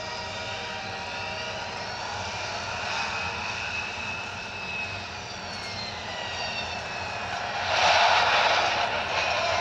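Airplane flying past as a film sound effect: a steady engine whine whose pitch glides downward, then a loud rush of engine noise as it passes close near the end.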